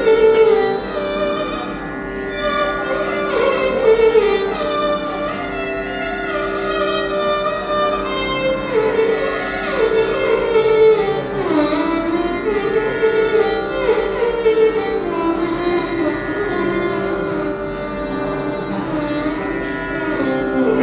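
Carnatic vocal music: a man sings slow, ornamented phrases that glide between notes, with a violin following him over a steady drone. There are no drum strokes.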